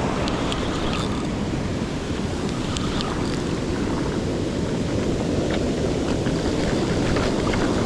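Ocean surf washing up on the beach, a steady rushing noise, with wind blowing across the microphone.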